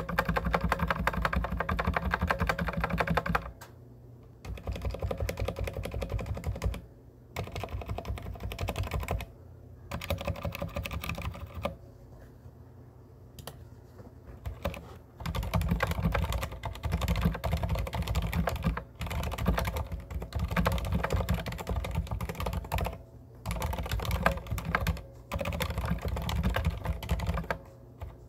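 Fast typing on a Deck Francium mechanical keyboard fitted with silent red (dampened linear) switches, PBT keycaps and lubed stabilizers. The keystrokes come in runs of a few seconds broken by brief pauses.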